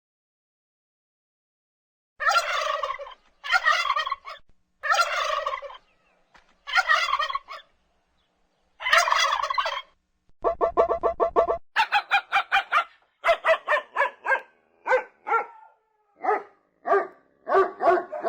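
Turkey gobbling. After a short silence come five separate harsh calls, then a rapid rattling run and a quick string of short calls.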